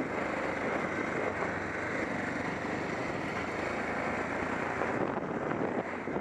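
Small off-road motor vehicle's engine running steadily under throttle as it rides across grass.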